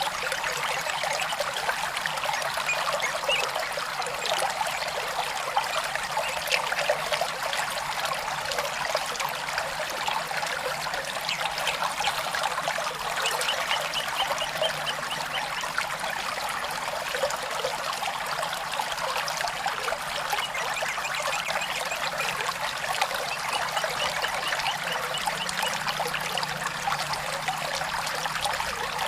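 Small stream trickling steadily.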